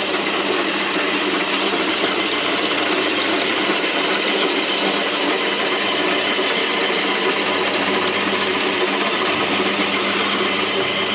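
Electric vegetable grater running steadily with a motor hum, shredding carrots.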